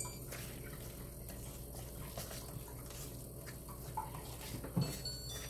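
Small whisk stirring flour batter mix in a stainless steel bowl: faint scratching and light ticking against the steel, over a steady low hum, with a soft thump near the end.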